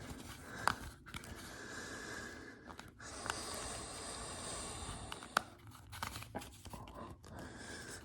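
Small plastic puzzle cube being twisted by hand: scattered light clicks of its layers turning over a faint steady hiss.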